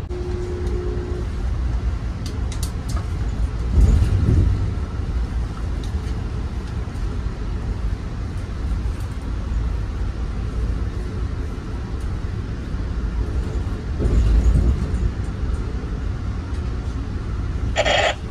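Passenger train running at speed, heard from inside the coach: a steady low rumble that swells louder twice, about 4 and 14 seconds in. A short, sharper sound comes near the end.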